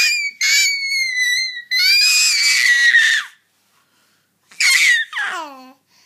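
An 11-month-old baby squealing with delight: long high-pitched squeals, then after a short pause two shorter ones, the last sliding down in pitch.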